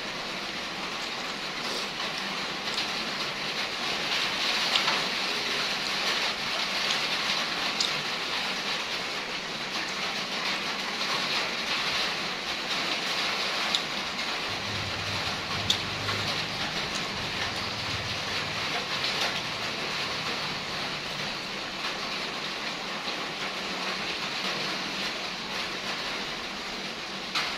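Steady hiss of rain falling, with a few faint clicks and taps on top.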